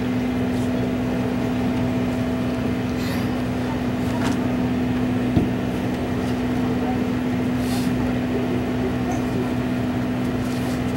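Steady mechanical hum of machinery running, a constant low drone, with one short knock about halfway through.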